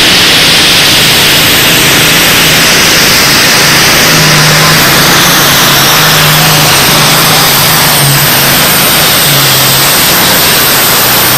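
Turbocharged diesel engine of a John Deere super stock pulling tractor at full throttle, hauling a weight-transfer sled down the track. It is loud and steady.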